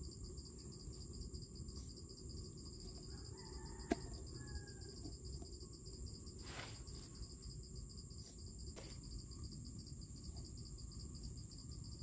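Steady high-pitched insect chorus, with a faint low background hum. A single sharp plastic click about four seconds in as the AeroPress is handled and set down. A few fainter taps and faint bird calls come and go.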